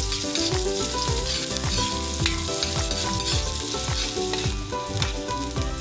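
Chopped garlic and onion sizzling in hot cooking oil in a wok, stirred with a metal spatula that scrapes against the pan.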